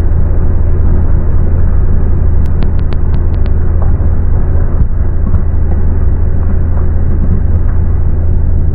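2004 Hitachi 35U mini excavator's diesel engine running steadily under load, with a strong low drone.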